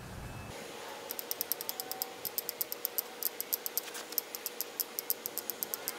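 Tin snips cutting through 1/4-inch wire-mesh hardware cloth, each wire giving a sharp click as it snaps, in a quick irregular run of about five clicks a second that starts about a second in.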